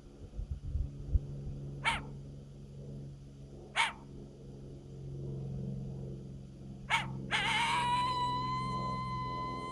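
Triple-reed diaphragm coyote howler blown by mouth: three short, sharp barks spaced a couple of seconds apart, then a long howl that rises briefly and holds on one high note.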